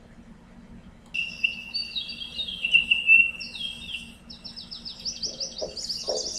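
Birdsong with high descending calls and fast trills, then a low steady beat a little over two strokes a second joining near the end. This is the opening of a documentary video's soundtrack.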